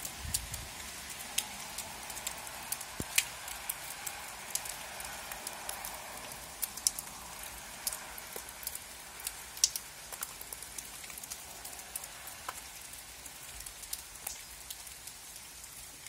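Rain falling: a steady hiss with frequent sharp, irregular taps of single drops landing close by.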